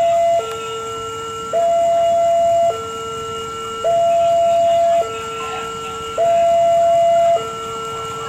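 Electronic level-crossing warning alarm, alternating steadily between a low tone and a higher, louder tone, each held a little over a second, signalling that a train is approaching.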